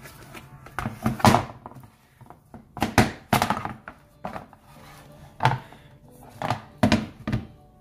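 Stiff thermoformed holster plastic being flexed and pulled off an HDPE holster mold, making a series of sharp crackles and knocks, some in quick pairs.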